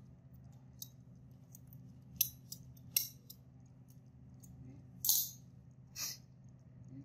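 Disposable diaper crinkling and rustling as it is handled and fastened, in short sharp bursts about two, three, five and six seconds in, over a steady low hum.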